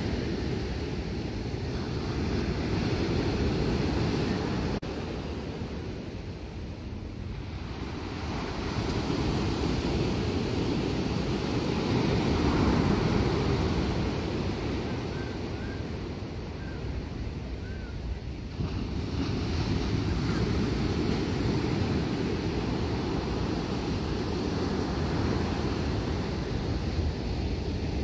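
Ocean surf breaking and washing up the beach, swelling louder and easing off several times as waves come in, with wind rumbling on the microphone.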